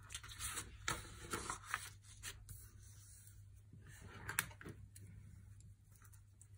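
A sheet of paper being slid and squared on a cutting mat by hand, rustling in short bursts through the first two seconds, with another brief burst of handling about four seconds in as a pencil is picked up.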